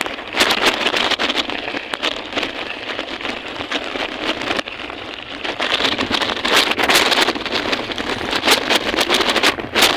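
Wind buffeting the microphone, with many short rattling clicks and knocks, while riding along on a bicycle.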